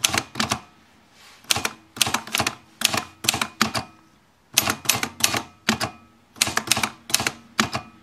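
Freshly serviced Olivetti Lettera 32 manual typewriter being typed on: typebars striking the platen in quick runs of sharp clicks, word by word, with short pauses between the runs.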